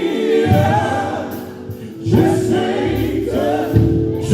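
Live gospel music: a group of male voices singing held notes in harmony over instrumental backing, with a short dip in loudness about a second and a half in.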